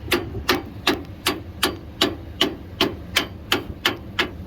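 Hammer tapping steadily on a snowplow mounting pin to drive it out, about three even metal knocks a second.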